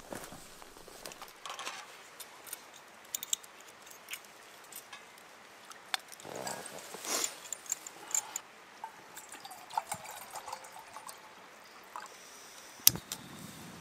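Scattered small clicks and rustles of gear being handled, with a louder rustle about halfway through and one sharp click near the end.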